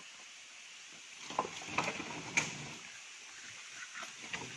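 Working elephant shifting a felled log with its trunk and foot: a burst of knocks and scrapes from about a second in, with a few sharp clicks, then fainter knocks near the end.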